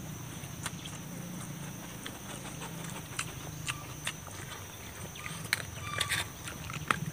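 Close-mic chewing and mouth smacking of raw vegetables: irregular short wet clicks, thickest about five to six seconds in, over a low steady hum in the background.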